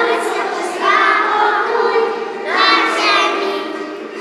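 A group of young children singing a Christmas carol together, the singing tailing off near the end.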